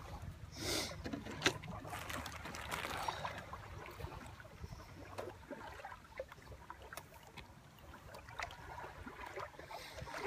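Plastic bottle of Coca-Cola twisted open, with a short hiss of escaping gas about a second in, followed by small clicks and rustles of eating and handling food.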